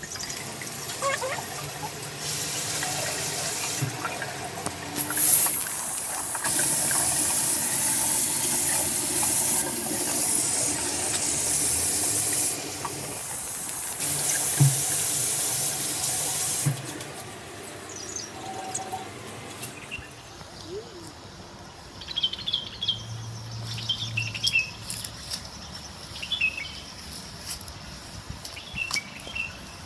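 Water running from a bathroom tap into a sink while hands are rinsed under it. It starts about two seconds in, dips briefly and stops after about fifteen seconds. Short bird chirps follow.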